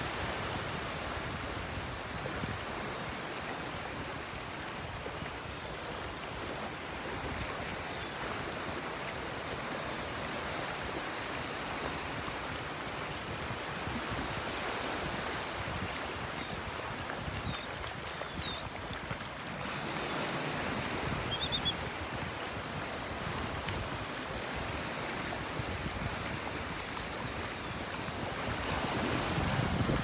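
Small Gulf of Mexico waves lapping and washing on the beach, with wind on the microphone. A few brief, high bird calls from the resting shorebird flock come about two-thirds of the way through, and a wave washes in a little louder near the end.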